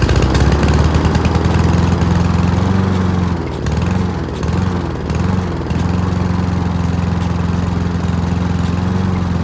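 Hyundai P5100SPE lawnmower's four-stroke petrol engine running on its first start after a carburettor clean. Its speed dips and recovers several times about three to five seconds in, then holds steady. The owner puts the unevenness down to working the manual choke too impatiently and says that once warmed for a few seconds it ran really clean.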